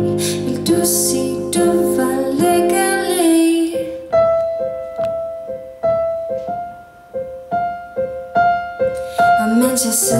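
A woman singing in Danish over piano accompaniment. About four seconds in the voice stops and the piano plays a short interlude of single notes, about two a second. The singing comes back near the end.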